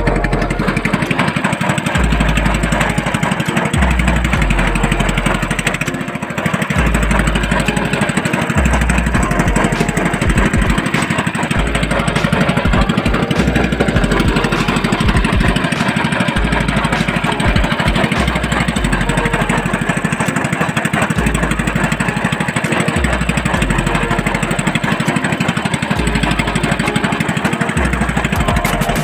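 Small engine of a motorized outrigger boat running steadily at cruising speed, with an irregular low rumble coming and going beneath it.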